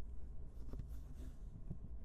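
Faint low rumble with a few soft scratchy ticks, picked up through a stethoscope; the heartbeat is barely heard here.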